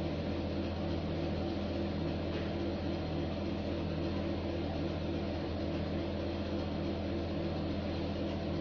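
Steady mechanical hum of a running appliance motor: a low drone made of several steady tones, with a faint, even pulsing.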